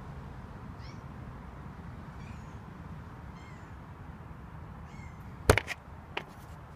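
A cat meowing four times, faint and high-pitched, then a few sharp knocks from the camera being handled near the end, the first knock the loudest.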